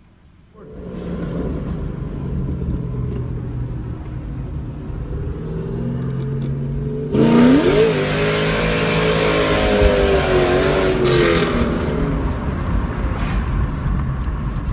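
A Ford Mustang GT's 4.6 L three-valve V8 comes in about half a second in and runs steadily. About seven seconds in it gets suddenly louder, with a rising pitch, as the car revs and accelerates away.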